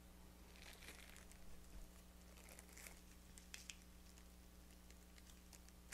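Near silence with faint handling sounds from a Celestron telescope eyepiece: soft rustles of its plastic wrapping about a second in and again near three seconds, then two light clicks a moment later.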